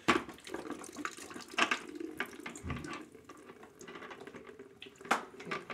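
Leftover water from a shut-off household water line running and splashing into a bucket, with sharp knocks now and then. The loudest knocks come at the start and about five seconds in.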